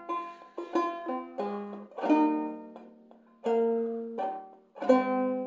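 Banjo in open G-minor tuning (G tuning with the second string lowered to B flat) picking a slow melody one note at a time, about ten notes, each ringing out and fading before the next.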